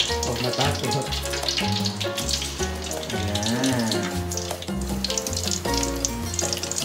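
Breaded chicken rolls sizzling and crackling as they go into hot frying oil in a pot, with background music playing over it.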